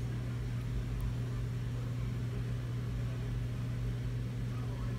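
Steady low hum with a faint hiss, unchanging throughout.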